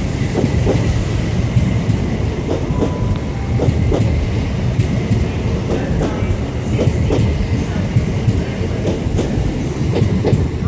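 Hauled, unpowered LNER Azuma (Class 801) coaches rolling past at low speed. There is a steady rumble with wheels clicking repeatedly over rail joints.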